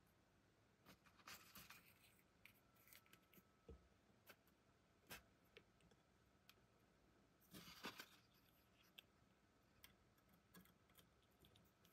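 Near silence with faint scattered clicks and short rustles of handling, a cluster about a second and a half in and another about eight seconds in.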